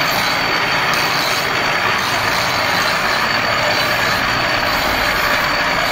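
Steel knife blade held against a spinning pedal-driven grinding wheel, giving a steady grinding hiss as the edge is sharpened and polished.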